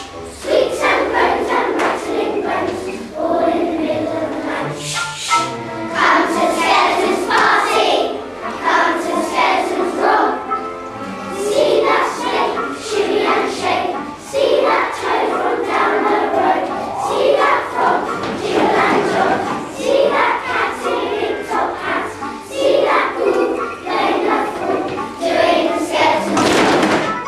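A choir of young children singing a song together with instrumental accompaniment.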